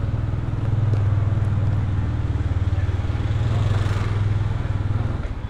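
Motorbike engine running steadily as the bike is ridden, heard from on the bike: a low hum with a fast even pulse. A rushing noise swells and fades about three to four seconds in.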